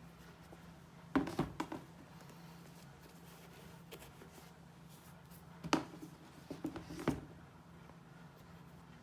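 Sneakers and packaging being handled: two clusters of short knocks and taps, one about a second in and a louder group around six to seven seconds, over a steady low hum.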